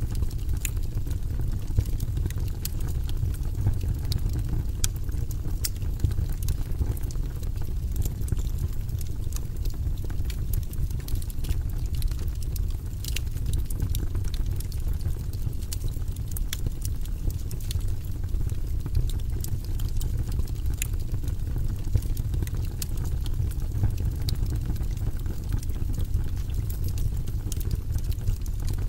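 Wood fire burning in a fireplace: a steady low rumble of flames under scattered sharp crackles and pops from the burning logs.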